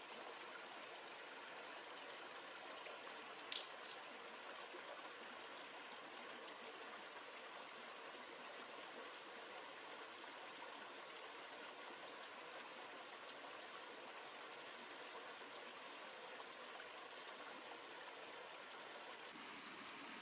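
A small rocky stream flowing and trickling steadily over stones. Two short sharp clicks come about three and a half seconds in.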